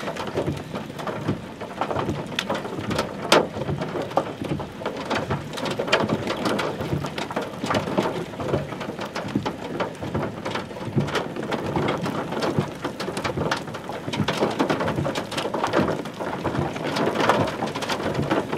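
Steady rain pattering, with many sharp individual drops striking close by.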